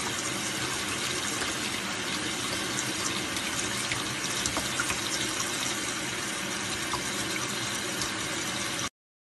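Tap water running in a steady stream and splashing onto a small hedgehog held in a hand over a sink. It cuts off abruptly near the end.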